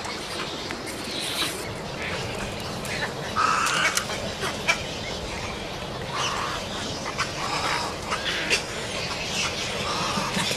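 Birds calling, a string of short harsh squawks and chattering notes with scattered sharp clicks, over a steady background hiss.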